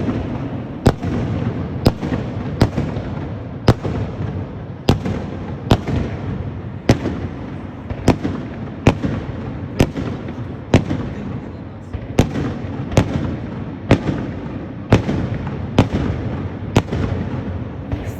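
Fireworks salute: sharp bangs of exploding shells about once a second over a continuous rumble of launches and bursts.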